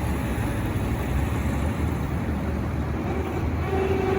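Steady low engine drone of running farm machinery, with a steady higher tone coming in near the end.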